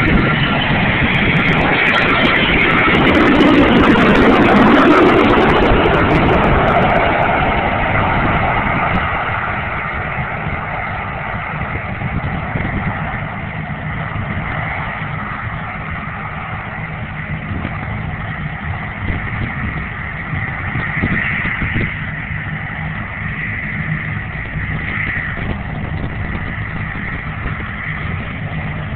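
Four-engine jet airliner flying low on a touch-and-go: loud jet engine noise that peaks and drops in pitch in the first several seconds as it passes, then fades to a steady distant rumble with a thin whine as it climbs away.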